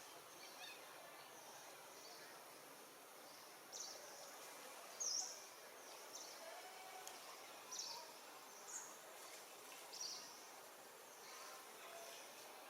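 Faint outdoor background hiss with about five short, high-pitched animal chirps scattered through it, spaced a second or two apart.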